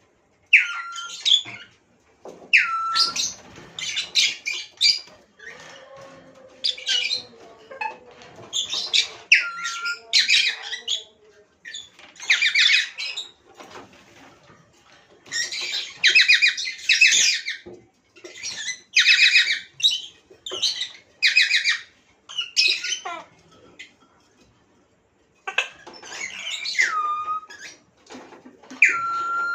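Lovebirds squawking and chattering in repeated short, harsh, high-pitched calls, some with a quick falling note, in bouts with brief pauses.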